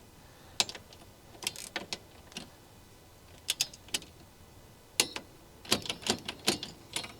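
Click-type torque wrench ratcheting while tightening the hitch bolts' nuts toward 30 foot-pounds, sharp metallic clicks in short irregular clusters.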